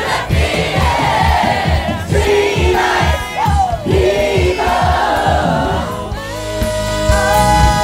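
Party crowd singing and shouting along over dance music with a steady bass beat. About six seconds in the crowd voices drop back and long held musical notes take over.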